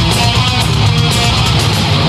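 Heavy metal band playing live: distorted electric guitars over electric bass and drums, with no vocals.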